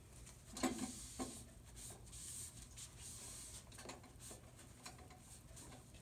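Faint rubbing and rustling with a few light knocks as a towel wipes mold and vinegar water off the top of a bird feeder. The knocks cluster about a second in.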